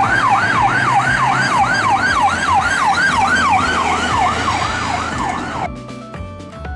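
Ambulance siren wailing up and down quickly, about three sweeps a second, over background music, cutting off a little before the end.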